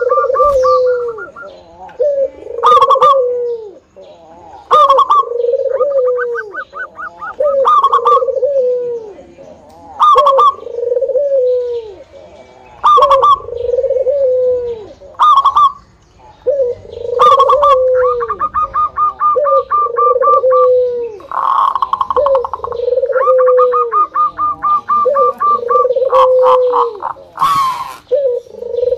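Zebra dove (perkutut) singing, repeating its cooing phrase about every two seconds: a sharp high note, then a lower coo that falls in pitch. Between phrases come runs of fast, evenly spaced high notes.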